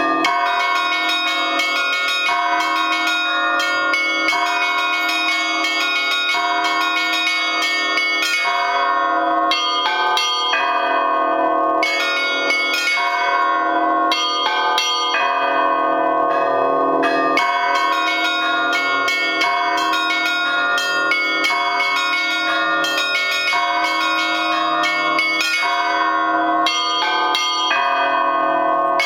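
A festive Russian Orthodox peal (trezvon) in Yaroslavl style on eight hand-rung church bells, a mixed set from the Lavrov, Olovyanishnikov and Shuvalov foundries, many of them damaged. The bells strike over and over in a 6/8 rhythm, and their ringing overlaps and sustains throughout.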